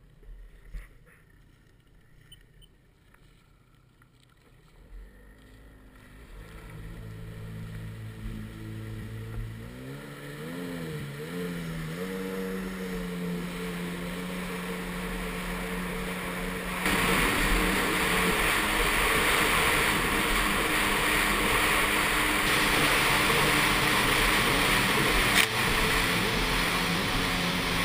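Sea-Doo 3D Di jetski's 951cc two-stroke engine, faint at first, then running up about five seconds in, its pitch rising and wavering as it is revved. From about seventeen seconds in it gets louder, joined by a steady rush of spray and water as the jetski runs at speed.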